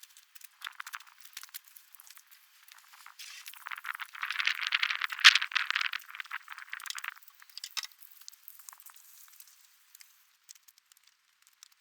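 Metal toolbox being washed with a scrub brush and garden hose: irregular clattering and scrubbing, with a louder, denser stretch of hissing noise from about three to seven seconds in.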